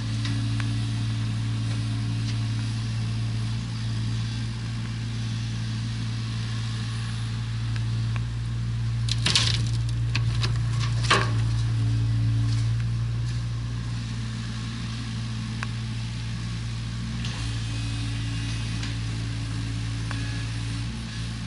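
Heavy construction machine's engine running steadily, with two sharp clanks about nine and eleven seconds in.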